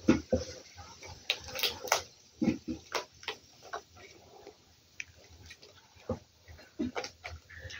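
Raw chicken neck skin being pulled and peeled loose from the carcass by hand, making short, irregular wet squelches and sticky clicks.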